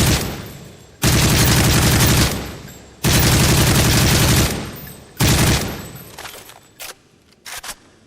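Automatic gunfire sound effect: three bursts of rapid fire, each lasting about a second to a second and a half and trailing off in an echoing tail, followed by a short burst and a few lighter single shots near the end.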